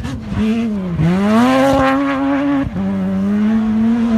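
Off-road rally car's engine at full throttle as it passes on a dirt track: the revs dip about a second in, climb back and hold high, then drop a step near three seconds and hold again.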